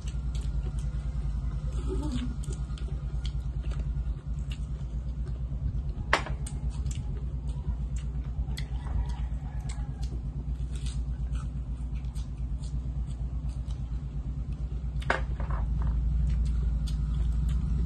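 A person eating by hand with scattered chewing clicks and mouth smacks, one sharper click about six seconds in, over a steady low hum.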